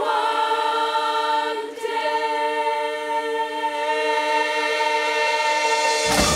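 Massed girls' choir singing one long held chord, with a brief catch about two seconds in; it cuts off sharply near the end.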